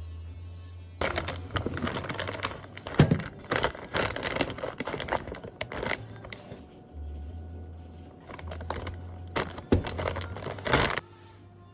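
Crinkling and rustling of something being handled, in two spells with a pause in the middle, over a faint low hum.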